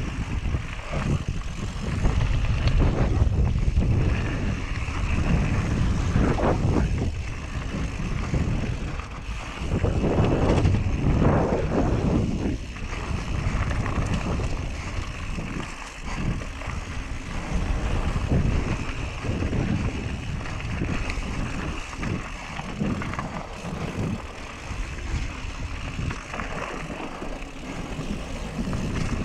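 Wind buffeting the action camera's microphone together with a Whyte G-170 mountain bike's tyres rolling and skidding over loose dirt and gravel and the bike rattling over bumps on a fast downhill run. The level swells and eases.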